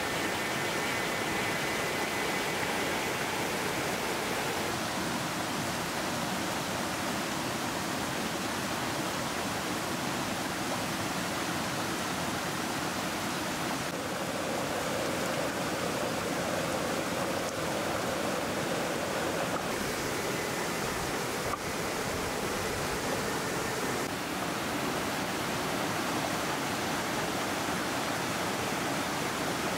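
Rocky stream cascading over boulders: a steady rush of water.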